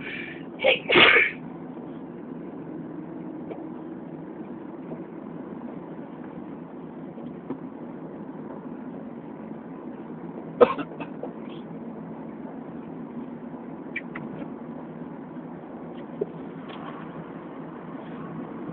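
A person sneezes about a second in: a short catch and then a louder, longer burst. A second brief, sharp burst comes about ten seconds later, over a steady low background hum.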